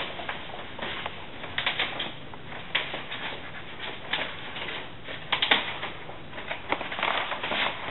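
Irregular taps, clicks and rustles of a cardboard package being handled and turned over.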